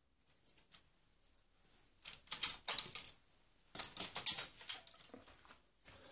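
Hand tools being handled off-camera: two bouts of light, quick clicking and rattling, each about a second long.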